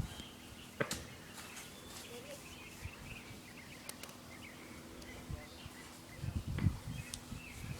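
Quiet outdoor ambience with faint bird chirps, a few light clicks, and soft low thumps near the end.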